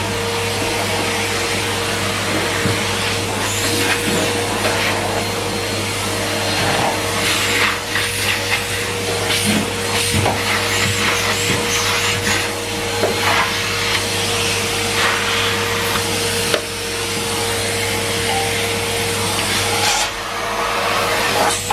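Numatic Henry Pet canister vacuum cleaner running steadily, a constant motor hum with a held tone, while the floor tool is worked across the floor with scattered short clicks and rubbing.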